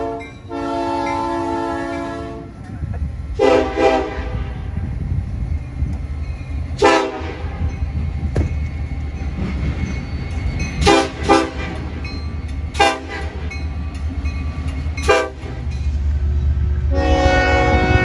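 Diesel locomotive air horns over the low rumble of the locomotives. A chord is held for about two and a half seconds, then about six short blasts come a few seconds apart, two of them close together, and a long blast starts about a second before the end.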